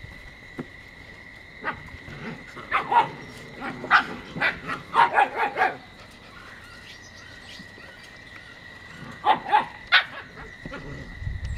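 Samoyed puppies barking in short, sharp yaps: a quick run of them from about two to six seconds in, then a few more near the end.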